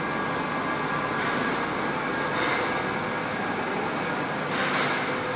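Fiber opening and recycling production line running: a steady, continuous machine noise with a faint hum running through it.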